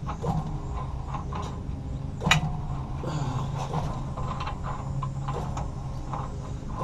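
Small metal clicks and scrapes of a large bolt being worked by hand into its threads under a bus frame, with one sharper knock about two seconds in. A steady low hum runs underneath.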